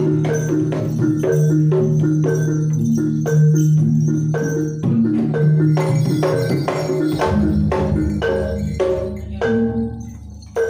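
Javanese gamelan playing jaranan accompaniment: bronze bonang kettle gongs and hanging gongs struck in a quick, steady pattern over held low gong tones, with drum strokes. The playing gets quieter and thins out near the end.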